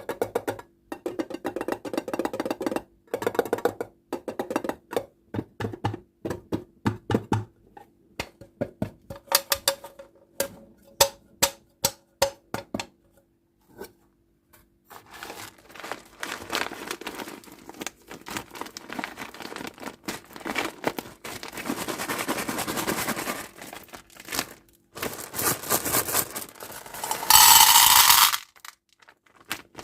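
Short stretch of music, then a run of sharp clicks and irregular crinkling and rustling of candy and toy packaging being handled and opened, with one loud crackling tear near the end.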